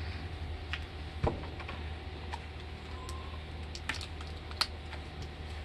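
A few light plastic clicks and snaps as the cap and seal are worked off a new plastic jug of chainsaw bar oil, the sharpest about a second in, over a steady low hum.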